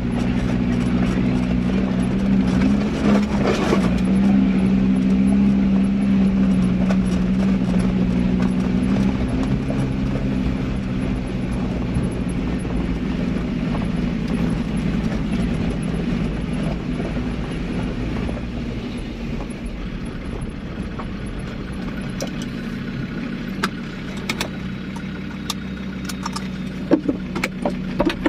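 A 4x4 driving slowly along a rough gravel and stone track: a steady engine hum with the rumble and rattle of tyres over loose stones. It eases off toward the end, with scattered clicks and knocks in the last few seconds as it comes to a stop.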